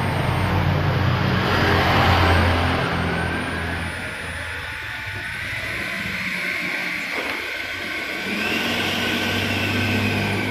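A 70 mm 12-blade electric ducted fan in a foam Super Habu jet model on a ground run: a rushing whine that climbs in pitch through the middle. It eases off in loudness partway through and builds again near the end.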